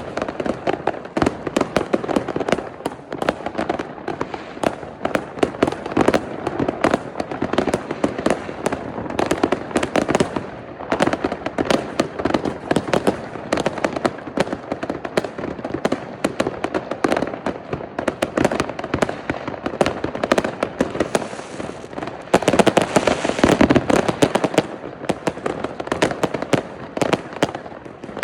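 Many consumer fireworks and firecrackers going off together in a continuous barrage of overlapping bangs and crackles, swelling into a louder, denser stretch near the end.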